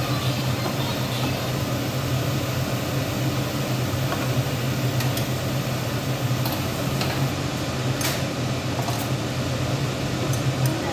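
Steady mechanical hum of a kitchen appliance motor, like a fan, with a few light clicks and clatters of cookware handled at the counter between about five and nine seconds in.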